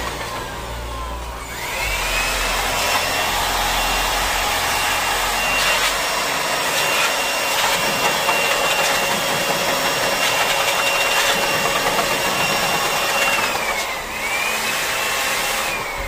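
Handheld electric blower running with a high whine and a rush of air, blowing dust out of a split AC's outdoor unit. It winds down at the start and spins back up about a second and a half in. It then runs steady, briefly drops and picks up again near the end, and winds down at the very end.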